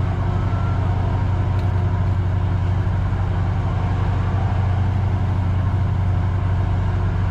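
A boat engine running steadily at an even speed, a constant low hum.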